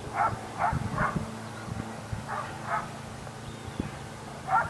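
A dog barking in short runs of two or three barks, a few tenths of a second apart, over a low steady hum.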